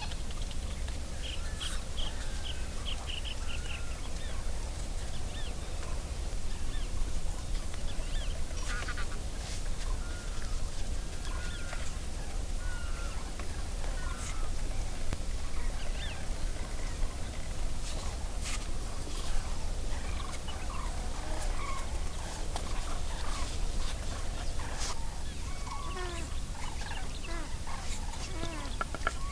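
Birds calling and chirping on and off, with short squiggly calls and a quick run of repeated notes near the start, over a steady low rumble and a few sharp clicks.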